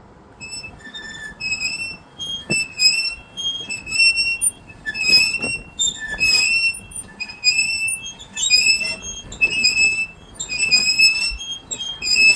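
Spare-tire hoist being cranked counterclockwise with its wrench, lowering the spare tire and squeaking high-pitched over and over, about once a second, with a few sharp clicks.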